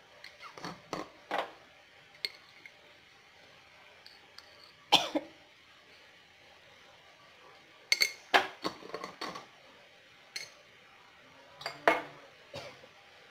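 Scattered clinks and knocks of a spoon against a salt container and a nonstick kadai as salt is spooned over the chopped banana flower, coming in short clusters with the loudest knock about five seconds in.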